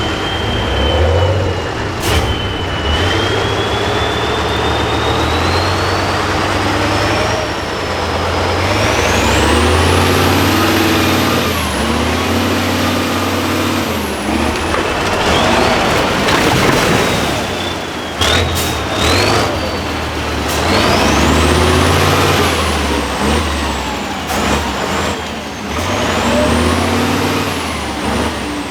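Tatra 6x6 truck's diesel engine revving up and down under load, with a high whine that climbs and falls with the revs. A few sharp knocks break in, about two seconds in and again around eighteen and twenty-five seconds.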